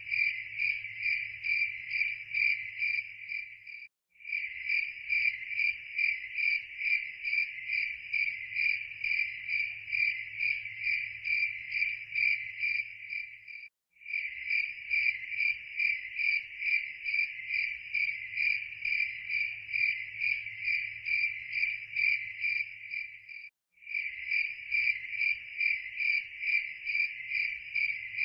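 Crickets chirping in a steady, rapid run of even pulses, breaking off for a moment three times, about every ten seconds.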